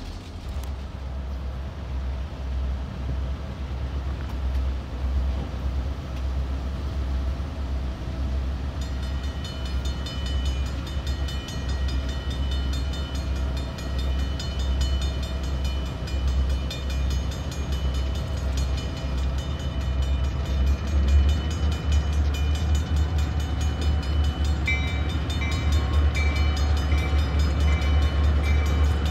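EMD GP38-2 diesel locomotives rumbling low and steady, growing louder toward the end as the train approaches. From about nine seconds in, grade-crossing warning bells ring steadily, and a second, higher bell joins near the end.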